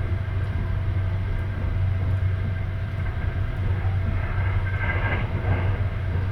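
Sleeper train running along the line, a 285 series electric train, with a steady low rumble from the wheels and carriage. About five seconds in, a brief hiss-like rise in higher-pitched noise comes over the rumble.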